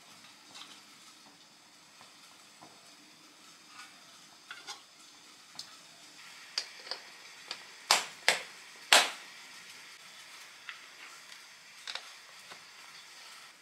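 Faint sizzle of chicken frying in a wok, with scattered light clicks and taps of metal tongs as the pieces are lifted out and dropped into a stainless steel container. Three sharp knocks about eight to nine seconds in are the loudest sounds.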